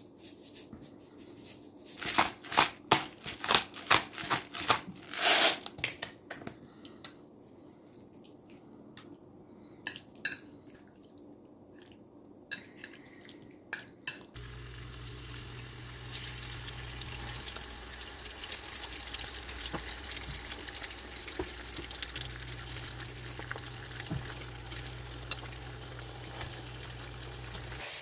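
Wooden chopsticks clicking and knocking against a ceramic bowl as raw chicken pieces are mixed with seasoning: a quick run of sharp taps a couple of seconds in, then a few softer clicks. About halfway through, a steady hiss with a low hum takes over.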